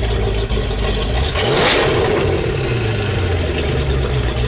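Motorboat engine running with a steady deep rumble, and a brief rushing swell about a second and a half in.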